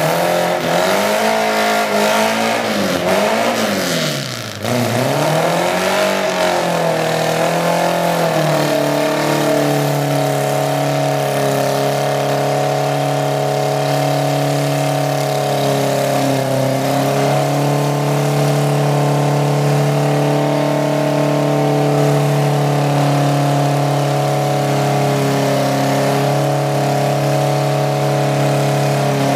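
Volkswagen bay-window bus's engine revved up and down several times, then held at steady high revs for about twenty seconds while its rear tires spin in a smoking burnout.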